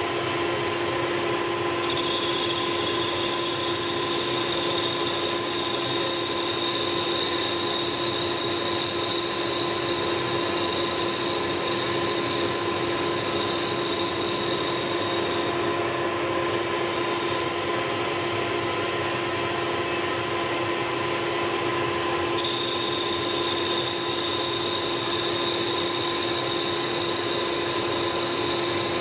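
Motor of a workshop power tool running steadily, with a high whine that cuts in about two seconds in, drops out about halfway through and comes back near the end.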